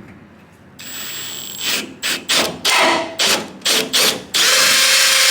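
Power drill boring a hole in the F-150's aluminum bed panel: a series of short trigger pulses, then about a second of continuous drilling with a steady whine.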